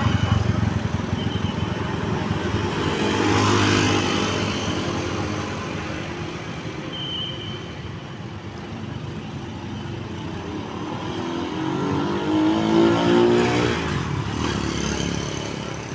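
Passing vehicle noise with a Basuri telolet multi-tone horn sounding: a short pitched blast about three seconds in, then a tune of stepping notes near the end.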